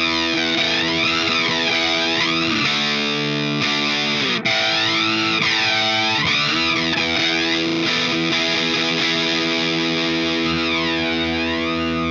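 Distorted electric guitar chords through the GTC REVPAD's touch-activated flanger, with a sweep that rises and falls about once a second. Several chords are struck, and the last one rings on from about halfway.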